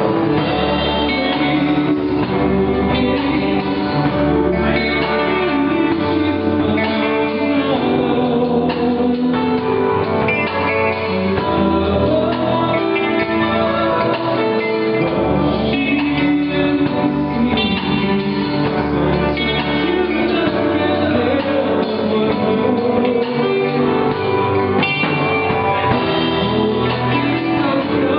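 A live band playing a song, led by guitar, with a voice singing over it.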